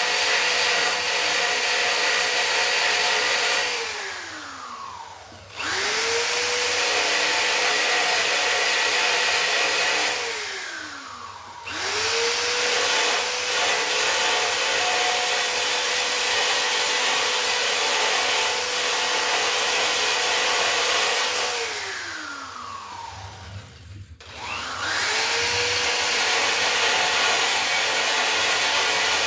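Small handheld electric grinder running at a steady high whine, grinding welds on a steel bike frame flat. It is switched off three times, winding down each time before spinning back up.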